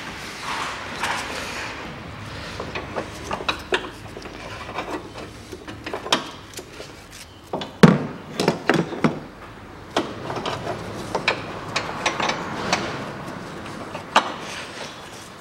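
Hand tools clicking, scraping and knocking on the plastic air filter housing and its mounting bolt as the bolt is worked with a wrench; the bolt is a through-bolt that spins instead of coming undone. A sharp knock about eight seconds in is the loudest.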